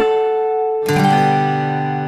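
Acoustic guitar music: a held note, then one strummed chord a little under a second in, left to ring and slowly fade.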